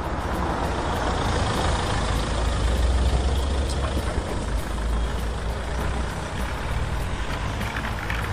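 Steady low engine rumble, like a truck engine idling.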